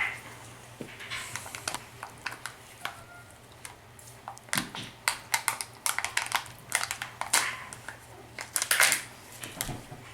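Hands handling the plastic parts and wrappers of a Kinder Joy egg: irregular small clicks and crinkles, busiest near the end.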